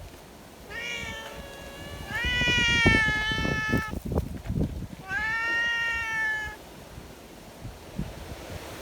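Cat meowing three times in long, drawn-out calls, the middle one the loudest and longest, over low rumbling noise.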